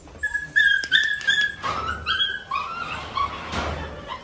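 Belgian Malinois dogs whining and yipping: a quick series of short, high-pitched cries, some dropping in pitch.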